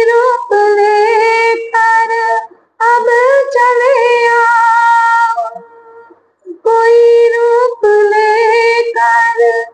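A woman singing a Hindi Krishna bhajan unaccompanied, in phrases of long held notes with short pauses for breath between them.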